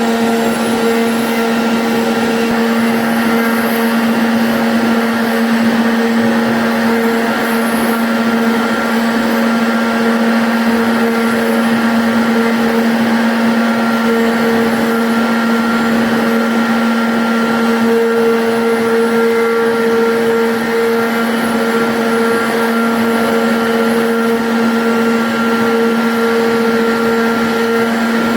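CNC router spindle running at constant speed while cutting a jali pattern in MDF: a steady, unbroken hum with a strong fixed pitch over cutting noise.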